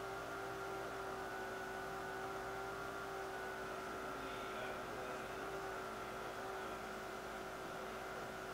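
Faint, steady machine hum with several held tones, unchanged throughout.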